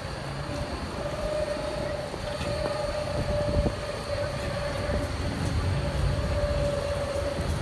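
Zürich Cobra low-floor tram passing slowly on a curve: a low running rumble with a steady mid-pitched whine.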